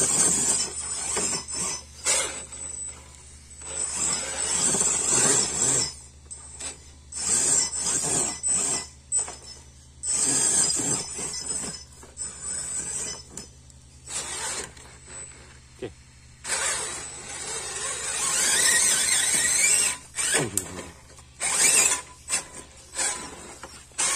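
Electric drive motors of RC scale crawler trucks whining in repeated on-off bursts as they are throttled up and over rocks, with a high-pitched whine in each burst.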